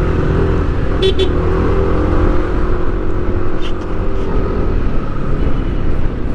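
Road vehicle's engine running steadily with heavy road and traffic rumble, heard from on board while riding; two short clicks about a second in.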